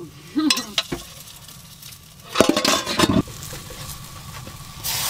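Spatula scraping and tapping against a frying pan as a large pancake is worked loose, the batter sizzling quietly; near the end a much louder sizzle sets in.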